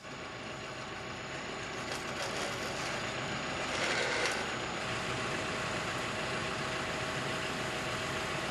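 Sonic drill rig's engine running steadily, with a brief louder noise about four seconds in.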